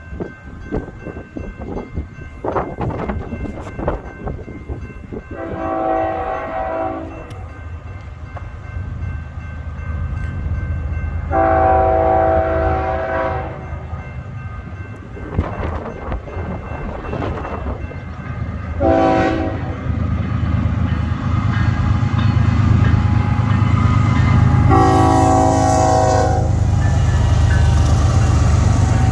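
GE ES44AC diesel locomotive sounding its multi-chime air horn in the grade-crossing pattern: two long blasts, a short one, then a long one. Underneath, the locomotive's low diesel rumble grows steadily louder as it approaches.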